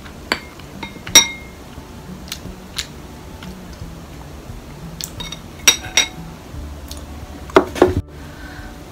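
Tableware clinking: a wooden spoon tapping and scraping on a ceramic plate, about a dozen short clinks, some ringing briefly, with the loudest two close together near the end.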